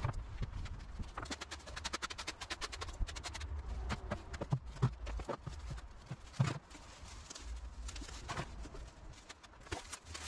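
Rustling and crackling of pulled weeds and leafy foliage being handled and stuffed into a galvanised metal bin. A few dull knocks come about halfway through as the bin is moved and set down.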